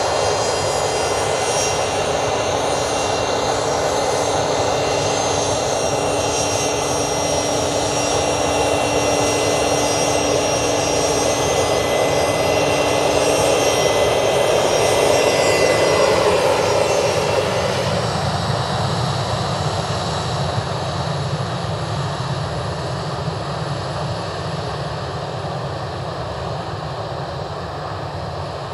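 Fokker 100's two rear-mounted Rolls-Royce Tay turbofans whining and rumbling as the jet taxis by. The sound grows loudest about halfway through as it passes, the whine drops in pitch as it goes by, then the sound fades.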